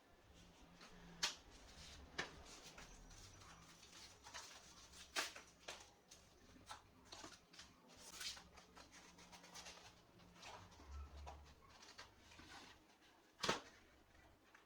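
Faint handling noises: scattered light clicks and taps with a few short scraping rustles, the sharpest click near the end.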